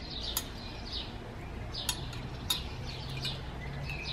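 Small birds chirping in short, falling calls, with a few sharp clinks of metal serving tongs and cutlery against china plates.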